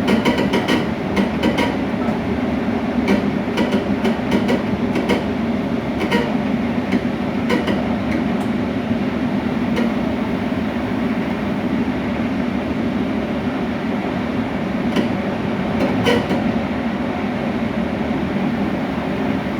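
Train running with a steady low rumble and scattered sharp clicks and knocks from the coupling between cars.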